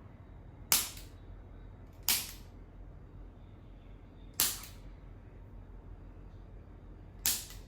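Four sharp, loud cracks during a chiropractic adjustment, spaced irregularly between one and three seconds apart, each dying away quickly.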